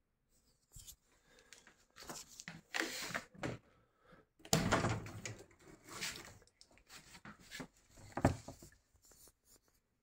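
Hands handling a built-in dishwasher's door and control panel: irregular scrapes, rustles and knocks, the loudest about halfway through and again just after eight seconds.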